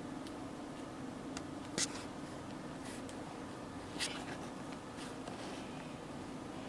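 Nail polish bottle and brush being handled while nails are painted: a handful of small sharp clicks and taps, the loudest just under two seconds in and at about four seconds, over a steady low hum.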